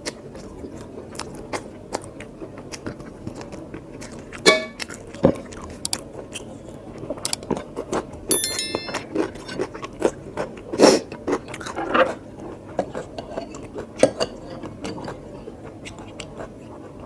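Close-miked chewing and biting of mutton curry and rice, a steady run of irregular mouth clicks and smacks.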